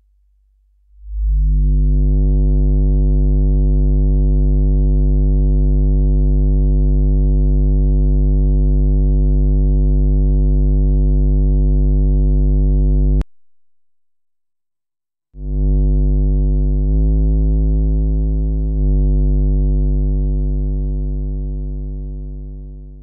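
Low, buzzy synthesizer note from a Eurorack modular system, filtered with its cutoff driven by a Make Noise Contour envelope and its resonance by the Contour's inverted (mirrored) output. It swells in about a second in, holds steady, and cuts off with a click about 13 s in; a second note starts about two seconds later, changes tone briefly in the middle, then dies away near the end.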